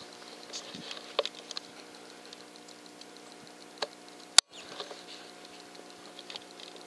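A single sharp rifle shot from a 6.5mm Grendel carbine about four seconds in, as recorded by the scope's microphone, with the sound cutting out for a moment right after. Around it are faint scattered ticks and rustles.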